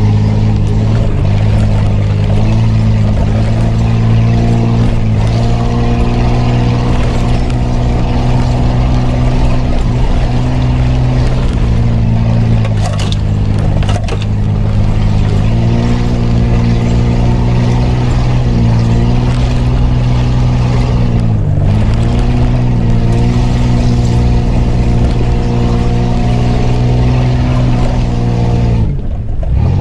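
Off-road 4x4's engine heard from inside the cabin, pulling steadily along a dirt track. Its pitch steps up and down with the throttle, dips briefly about two-thirds of the way through, and falls away sharply near the end.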